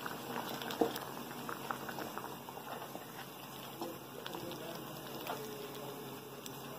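Thick kidney bean curry bubbling in a pan as a spatula stirs through it, a soft wet simmer with a few small clicks.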